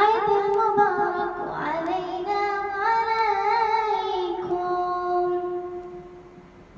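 A single high voice singing a song unaccompanied, with wavering ornamented notes. It ends on a long held note that fades away near the end.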